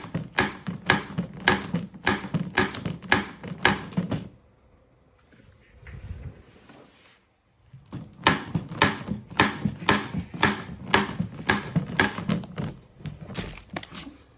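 A fast series of sharp knocks or thwacks, about two to three a second, stopping for a few seconds in the middle and then starting again.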